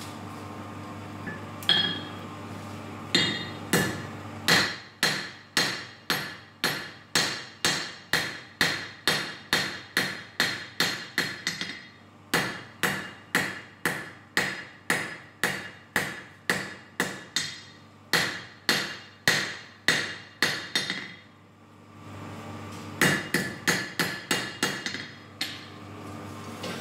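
Hand hammer forging hot steel for a small knife on an anvil: a long run of blows at about two a second, each one ringing. After a short pause comes a second, quicker burst of blows. A steady low hum runs underneath.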